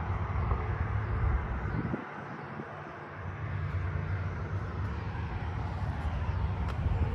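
Wind rumbling on the microphone over steady highway traffic noise; the low rumble drops away for about a second, two seconds in, then returns.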